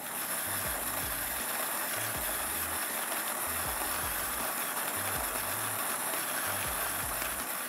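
Hario's handheld USB-powered electric motor turning the Smart G Clear grinder's 38 mm ceramic conical burrs, grinding coffee beans. It makes a steady, even grinding whir that starts abruptly as the motor's button is pressed.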